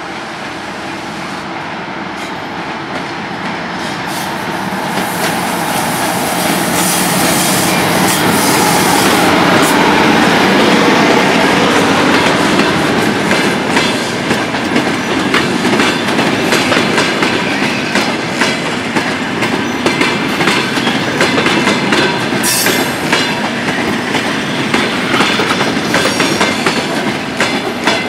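DS3 electric locomotive hauling an arriving passenger train, growing louder as it approaches and passes about ten seconds in. Then the passenger coaches roll by with a steady clickety-clack of wheels over the rail joints, with a brief hiss later on.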